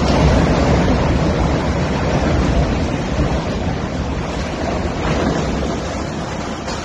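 Long crash and rumble of a steel container gantry crane collapsing, loudest in the first few seconds and slowly dying away, with wind buffeting the microphone.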